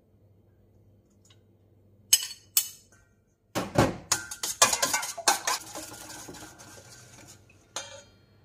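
A metal spoon beating a raw egg in a stainless steel mixing bowl: a quick run of clinks as the spoon strikes the bowl, thinning out towards the end. Two sharp clinks come first, about two seconds in.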